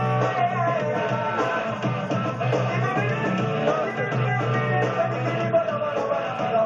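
Rock music with a singing voice and guitar, playing continuously.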